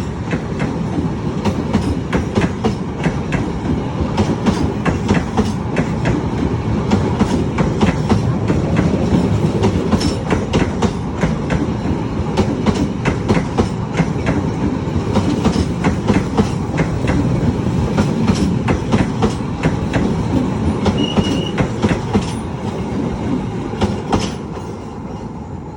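A train running past on the rails: a steady rumble of wheels with quick repeated clicks as they cross rail joints, dying away over the last few seconds.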